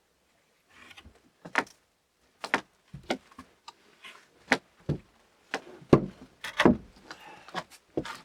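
A series of about a dozen irregular knocks and clunks, with some scraping between them, starting about a second in.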